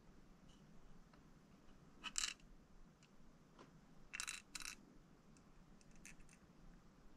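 Near silence broken by a few light metallic clinks, a pair about two seconds in and a quicker cluster around four seconds, as the wire-hung crankbait is lifted out of the metal clear-coat can and knocks against it.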